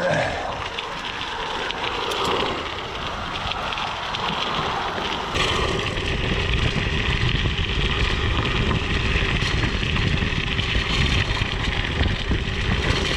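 Mountain bike tyres rolling over the ground with wind on the microphone; about five seconds in the rolling noise becomes louder and rougher.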